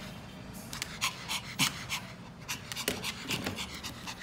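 Pomeranian (German spitz) panting, a quick run of short breaths about three to four a second.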